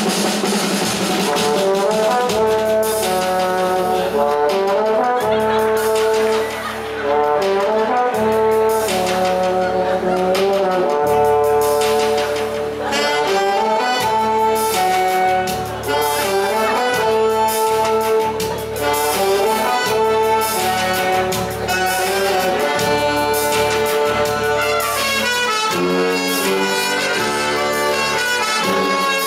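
Live brass band playing a tune, trumpets on the melody over low brass.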